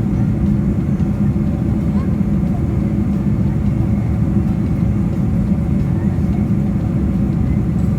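Steady low cabin rumble of an airliner, heard from inside the passenger cabin, even and unbroken.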